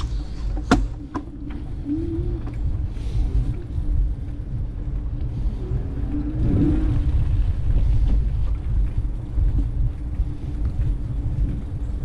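Steady low rumble of wind and road noise on a bicycle-mounted action camera's microphone while riding, with two sharp clicks about a second in.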